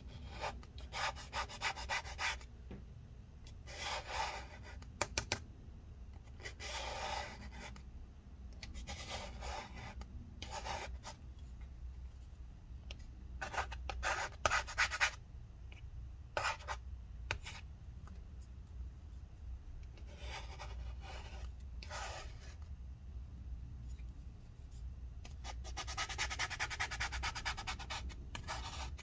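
Plastic scraper scraping gummy battery-adhesive residue, wetted with rubbing alcohol, off a laptop's aluminium case: short rasping strokes in irregular bursts, with a quicker run of strokes near the end.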